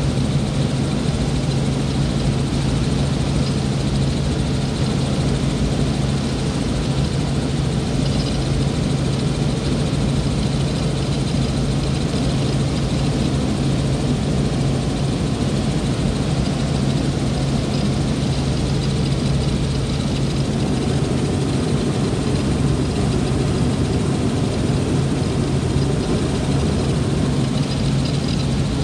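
Helicopter in cruising flight, heard from inside the cabin: a steady, unchanging drone of engine and rotor with a strong low hum under a constant rush of noise.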